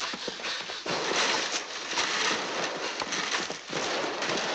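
Running footsteps and rustling of brush and leaves as people hurry through forest undergrowth, a busy mix of quick scuffs and cracks.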